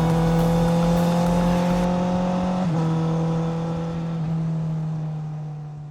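Honda CBR650R inline-four engine through an Akrapovic titanium exhaust, running at steady revs. The pitch dips briefly a little under three seconds in, then holds, and the sound fades out near the end.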